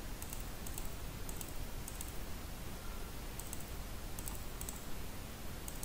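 Faint computer mouse clicks, about eight spread irregularly, each a quick double tick, over a steady low hiss of room noise.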